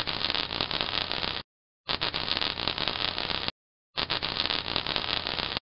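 Logo sound effect: three bursts of hissing, crackling noise, each about a second and a half long, separated by short silent gaps.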